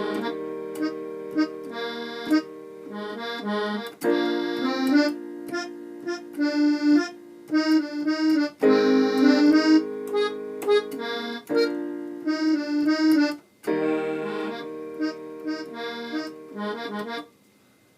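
Electronic keyboard playing a slow gospel groove: held chords that do not fade, with short notes moving over them, in phrases of about four seconds broken by brief gaps.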